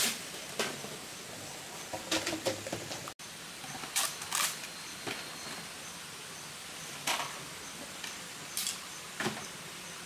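Scattered wooden knocks and clicks of sticks and poles being handled and set down on rocky forest ground, with some rustling of leaf litter, over a steady background hiss of forest ambience.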